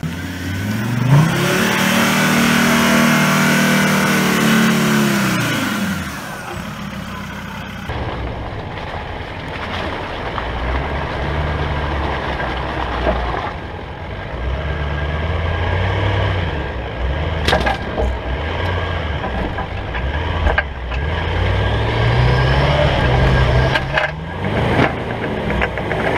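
A 4WD engine revving up and falling back over about six seconds as the ute works through deep muddy ruts. Then a lower engine rumble from an off-road vehicle crawling in low gear, revving up a few times, most strongly near the end, with one sharp knock partway through.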